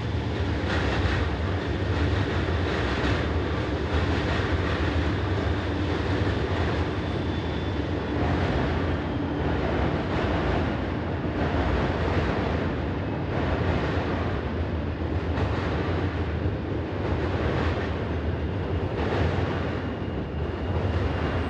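Diesel freight train crossing a steel truss railroad bridge: a steady low rumble of locomotives and intermodal container cars rolling over the span, with recurring wheel clacks about every second or so.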